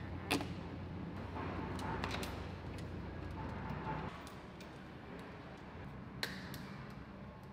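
A few sharp clicks and taps, one about a third of a second in and two close together near the end, over a low steady hum.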